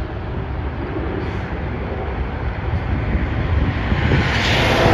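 Jet airliner engine noise, a steady rush over a low rumble, growing louder about four seconds in as the plane comes nearer.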